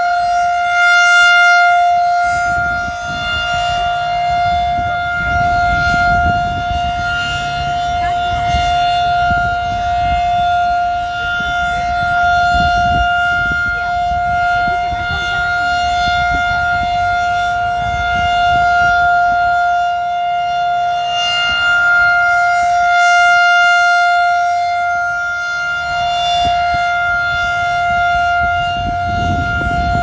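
Federal Signal 2001-SRN rotating tornado siren sounding its full alert signal: one steady, unbroken tone that swells and fades slowly, about every eleven seconds, as the horn turns past.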